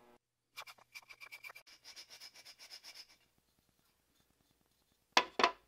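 A drill bit in a hand-held T-handle chuck, turned by hand and scraping into a wooden pulley pattern in quick, even strokes of about five or six a second for a couple of seconds. Two sharp knocks follow near the end.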